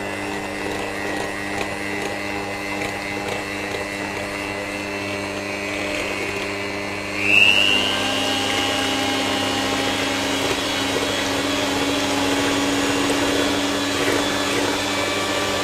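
Electric hand mixer running steadily, its twin beaters whipping eggs and sugar in a glass bowl. About seven seconds in, its pitch shifts slightly and it gets a little louder.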